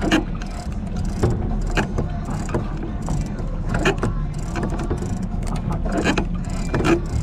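Sportfishing boat's engine rumbling steadily at low speed, with irregular slaps of water against the hull about once a second.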